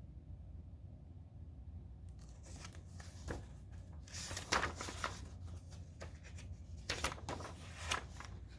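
Paper rustling and crinkling as the pages of a picture book are turned and handled, starting about two seconds in, in a series of irregular rustles over a low hum.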